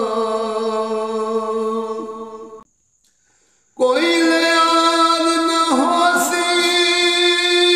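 A man singing a Punjabi Sufi kalam unaccompanied, in long held notes. One note fades out about two and a half seconds in, and after a second's pause he takes up a higher held note.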